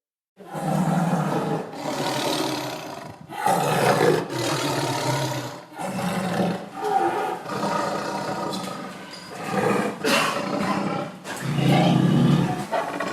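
Tiger growling and roaring: a run of loud, rough calls one after another with short breaks between, starting about half a second in.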